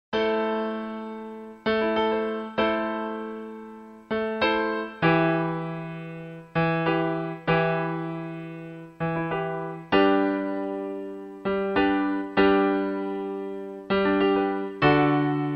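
Slow solo piano music: notes and chords struck about once a second, each left to ring and fade.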